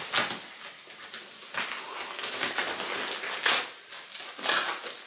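A white plastic mailing bag rustling and crinkling in irregular bursts as it is pulled open by hand, with the loudest crinkles about three and a half and four and a half seconds in.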